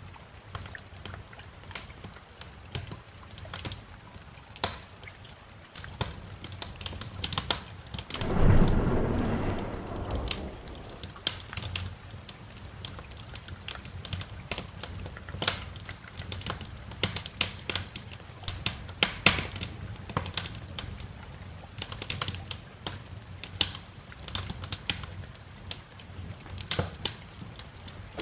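Wood fire crackling with many sharp pops over steady rain. About eight seconds in, a loud roll of thunder rumbles and fades over two or three seconds, and another begins right at the end.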